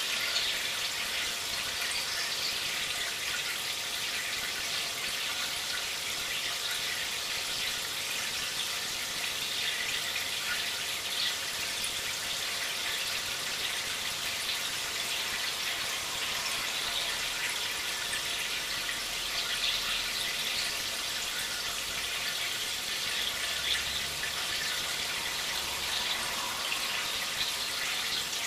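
Steady trickling and splashing of running water in a fish tank, an even hiss with small flickers that does not let up.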